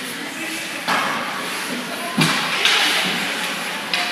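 Ice hockey play on an indoor rink: a sharp knock about a second in and a heavier thud just after two seconds, among general rink noise and spectators' voices.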